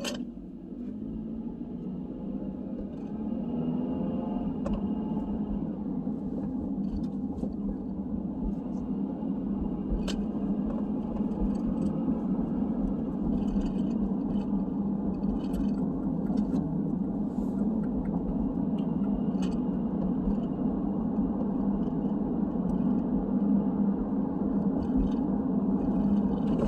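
Car interior noise while driving: engine and road rumble rising as the car picks up speed over the first few seconds, then running steadily.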